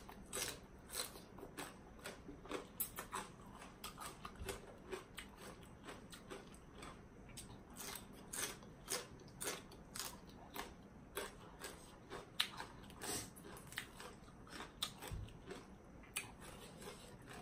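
A person chewing a mouthful of spicy papaya salad with noodles and raw salmon, heard close up as soft crunching with many small irregular clicks a few times a second.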